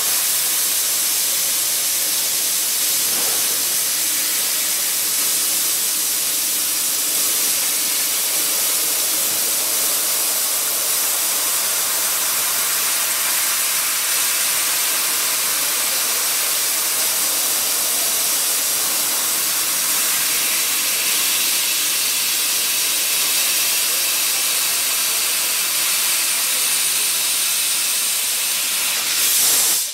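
6000 W fiber laser cutter cutting 20 mm brass plate: a steady, loud hiss of the assist-gas jet blowing molten metal out through the cut. It cuts off abruptly at the very end.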